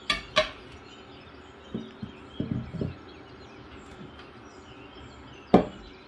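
Dishes knocking on a wooden table as a steel bowl and a plate are set down: two taps at the start, softer knocks around two to three seconds in, and one sharp knock about five and a half seconds in. Birds chirp faintly in the background throughout.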